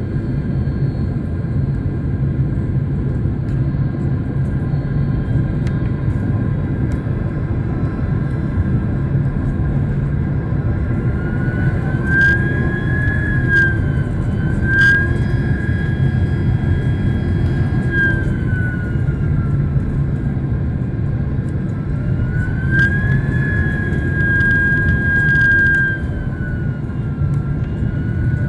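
Jet airliner cabin noise in flight: a steady loud rumble of airflow and engines. A whining engine tone rises and falls twice, and there are a few faint clicks.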